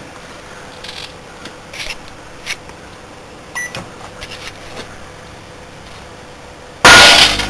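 Microwave oven running with a low steady hum and a few faint crackles from a bathroom lamp bulb being zapped inside it. Near the end comes a sudden loud burst as the lamp blows.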